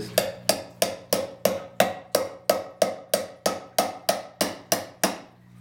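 Claw hammer striking an old knife set into the rim of a steel tin can, driving the blade down to cut the can's top: about sixteen steady blows, roughly three a second, each with a brief metallic ring. The blows stop shortly before the end.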